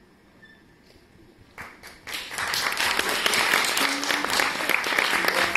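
Near quiet at first, then audience applause breaks out about two seconds in and quickly builds to steady, loud clapping.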